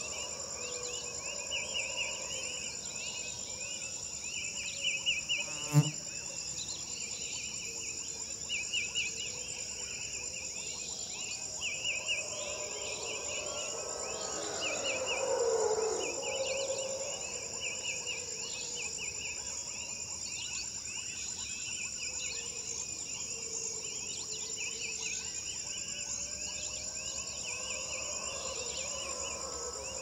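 Insect chorus: a steady high-pitched drone with repeated trains of chirping. A single sharp snap comes about six seconds in, and a brief louder swell of lower sound comes around the middle.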